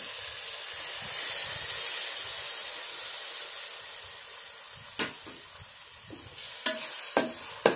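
Chilli-and-turmeric water poured into hot oil and vegetables in a stainless steel pan, sizzling loudly at first and dying down over about four seconds. Near the end a steel spoon knocks against the pan a few times while stirring.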